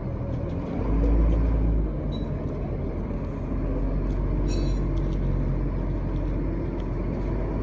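A heavy vehicle's engine running steadily with a low rumble that swells briefly about a second in, with a short metallic clink partway through.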